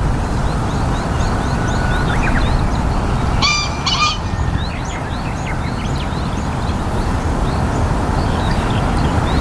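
Japanese green pheasant giving its loud, harsh two-note crowing call, the male's territorial call, about three and a half seconds in. Faint short chirps of small birds run throughout over a steady low rumble.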